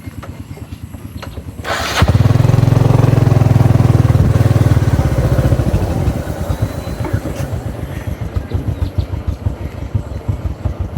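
Small engine running with a fast, even pulse. It gets much louder about two seconds in and eases off after about six seconds.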